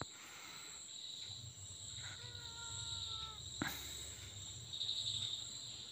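Faint, steady high-pitched insect trilling in the background, with a faint tone lasting about a second just after two seconds in and a single sharp click about three and a half seconds in.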